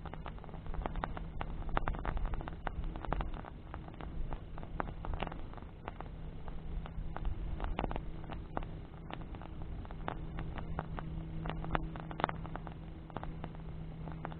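Wood bonfire crackling, with frequent irregular pops and snaps over a steady low rumble. A faint steady hum sits underneath for most of the time.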